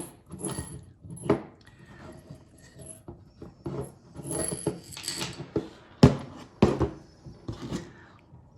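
Small metal and plastic parts of a wheelchair brake handle being handled: irregular clicks, clinks and rattles, with two sharper knocks about six seconds in.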